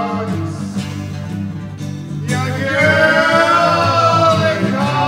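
Rock music: the band playing between sung lines, with a melody line that slides up and down from about two seconds in.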